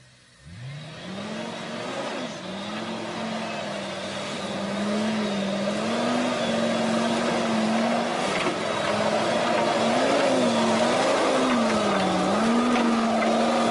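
Lifted off-road truck's engine revving up about half a second in, then held at high revs under heavy load as the truck pushes through mud and brush. Its pitch wavers up and down, with a few quick swings near the end.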